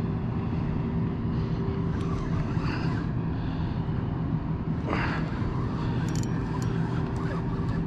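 An engine drone running at a steady speed, a constant low hum, with a brief higher sound about five seconds in.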